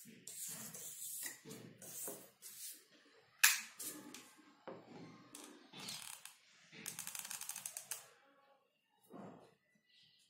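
Hot glue gun's trigger clicking as glue is squeezed onto small MDF board pieces, mixed with sharp knocks of the boards being handled on a table. One knock about three and a half seconds in is the loudest, and a quick run of clicks comes about seven seconds in.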